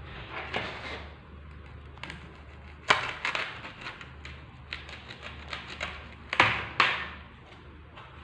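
A craft knife cutting white packing foam strips, and the foam pieces being handled and set down on a table, with scraping and small clicks. Sharp knocks stand out about three seconds in and twice more, close together, after about six seconds.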